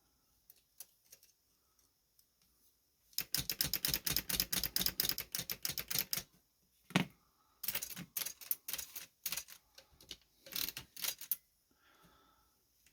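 Keys of an antique Chicago type-sleeve typewriter being struck, first a few faint clicks, then a fast run of clattering keystrokes a few seconds in, one louder clack, and further quick runs of strokes.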